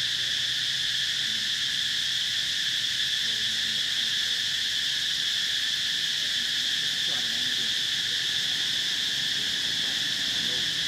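Steady, high-pitched drone of a chorus of insects that runs unbroken throughout.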